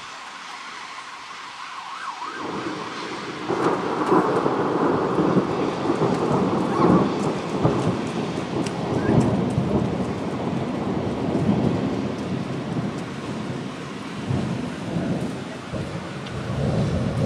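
Long rolling thunder over a hiss of rain. It builds about two seconds in, rumbles and crackles loudly for about ten seconds, then eases, with another swell near the end.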